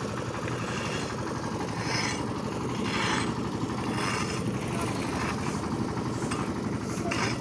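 An engine idling steadily, with a fine, even low throb. A few short hissing bursts come and go over it.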